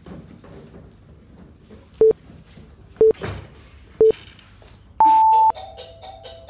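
Countdown timer beeping: three short beeps one second apart, then one longer, higher beep as the timer runs out.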